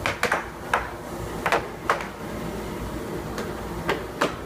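Air hockey puck and plastic mallets clacking on the table: a quick run of sharp hits in the first two seconds, a pause, then a few more near the end.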